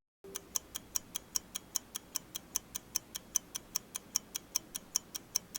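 Clock-ticking sound effect: quick, even ticks about five times a second, used as an answer timer.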